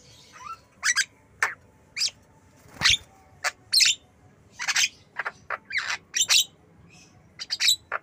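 Javan myna calling: an irregular string of more than a dozen short, sharp whistled calls, loud and quick.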